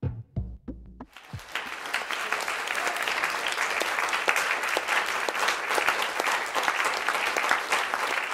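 The last few drum-machine beats of a song, then an audience applauding, starting about a second in and keeping up steadily.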